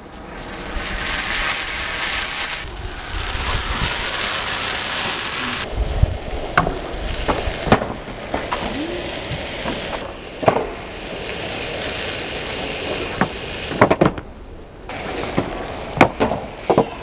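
A burning firework fountain hisses steadily for about the first five seconds. Then a skateboard clatters on concrete: sharp knocks and clacks of the board popping, flipping and landing.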